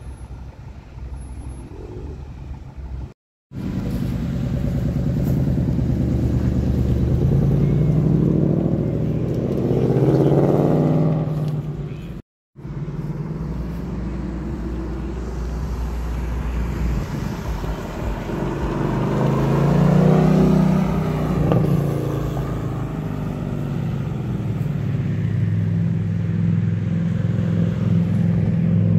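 Car engines accelerating hard away through the lot. One revs up with rising pitch about ten seconds in, and another swells and fades as it drives past about twenty seconds in. The sound drops out briefly twice.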